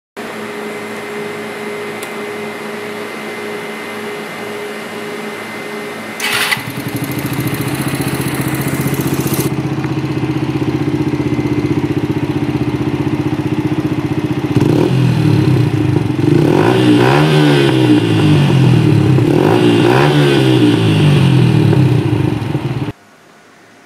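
Yamaha Factor motorcycle's single-cylinder four-stroke engine running through its exhaust: a steady idle, turning suddenly louder about six seconds in, then revved up and back down twice in the later part. The sound cuts off abruptly just before the end.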